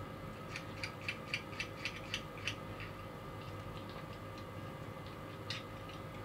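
A quick run of small, light clicks, about four a second for two seconds, then a single click near the end: fingers working the plastic and metal baseplate and wheel axle of a 1:64 diecast model car.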